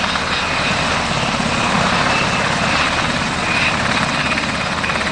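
U.S. Army UH-60 Black Hawk helicopter running loud and steady: rapid rotor chop under a constant thin high turbine whine.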